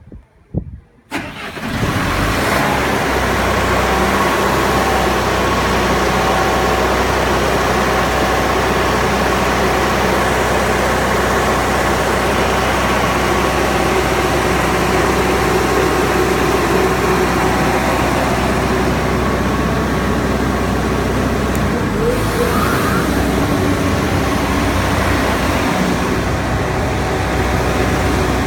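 Trilectron 20-ton aircraft ground air-conditioning unit starting up about a second in. It quickly comes up to a loud, steady running noise and keeps running evenly.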